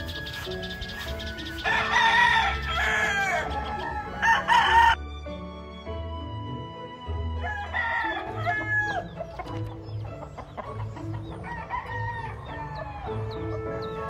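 Gamefowl roosters crowing, several calls overlapping, loudest at about two and five seconds in, with more crows from about eight seconds on. Background music with a steady beat runs underneath.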